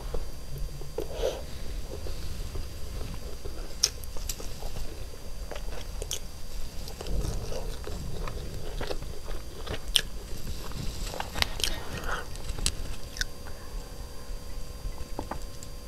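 Close-miked chewing of a mouthful of chicken biryani, with sharp wet mouth clicks scattered throughout.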